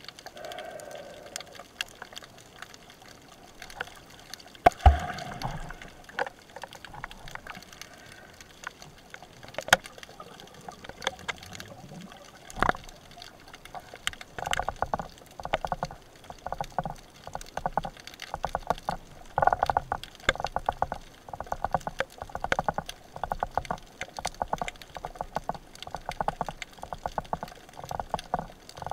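Underwater sound picked up by an action camera during a spearfishing dive: a muffled water background with scattered sharp clicks, then from about halfway a long run of quick, evenly repeated knocks, several a second.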